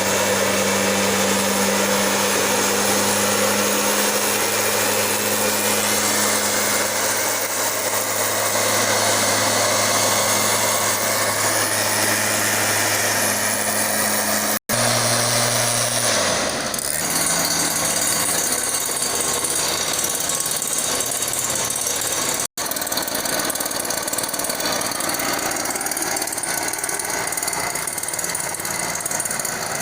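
Larviciding spray machine's small petrol engine running steadily under the rush of its blower. About halfway through the sound drops out for an instant, and afterwards the engine's hum sits lower and changes pitch; a second brief dropout comes later.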